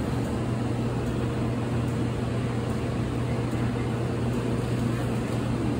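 Steady low mechanical hum: a constant drone with a few faint higher tones, from machinery running in the background.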